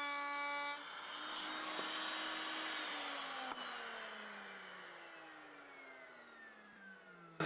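A woodworking power tool's motor whining steadily, then spinning down after being switched off, its pitch falling steadily over the last few seconds. A single sharp click comes about halfway through.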